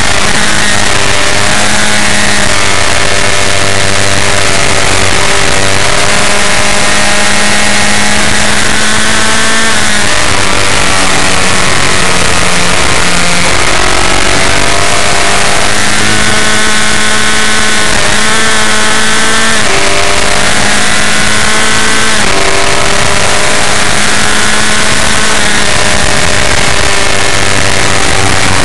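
Formula F1600 race car's engine heard from on board at racing speed, revving hard, its pitch climbing and dropping back several times with gear changes and lifts for corners, over steady wind and road noise.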